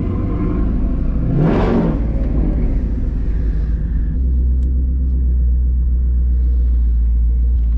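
Twin-turbocharged 2019 Ford Mustang GT's 5.0 V8 running at low speed through its Corsa Xtreme cat-back exhaust, heard from inside the cabin. It gives a short rev about a second and a half in, and from about four seconds in settles into a deep, steady drone.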